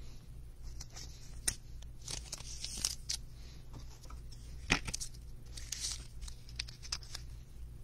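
Soft rustling and scattered light clicks of a trading card being handled and put into a clear plastic card holder, with the sharpest click a little under five seconds in.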